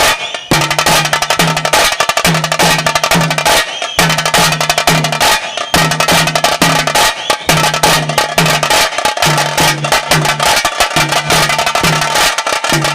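Taase drums beaten with sticks in a fast, dense, continuous rhythm, the beat that accompanies the pili nalike tiger dance. A deeper drum note recurs in groups of three beneath the rapid strokes, with a couple of very brief breaks in the beat.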